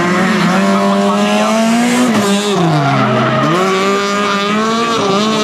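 Rally car engine revving hard as the car slides through a tight corner with its tyres squealing; the revs dip about two seconds in, then climb again about a second later.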